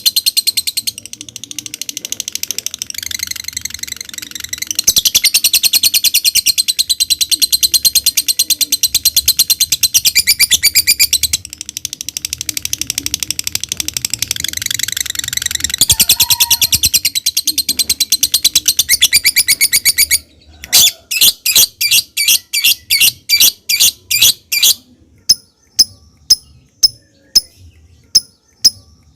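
Lovebird singing its long 'ngekek' trill: a rapid, high, rattling chatter held for about twenty seconds with brief dips. It then breaks into a run of loud separate chirps about three a second, and near the end into sparser sharp ticks.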